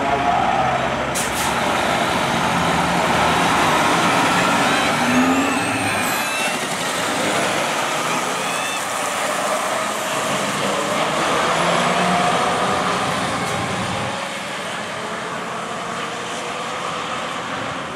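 Diesel engines of two semi tractors running hard at full throttle as they race down a drag strip, rising and falling in pitch through the gear changes. The sound eases off somewhat near the end as the trucks pull away.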